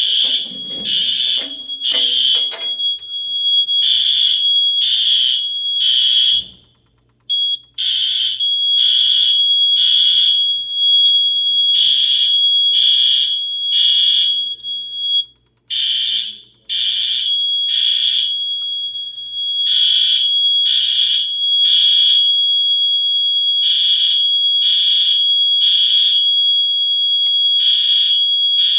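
Fire alarm horns, System Sensor SpectrAlert horn/strobes, sounding in the temporal-three evacuation pattern: three blasts about a second apart, then a pause, repeating, over a steady high tone. The sound cuts out briefly twice, about six seconds in and again about fifteen seconds in.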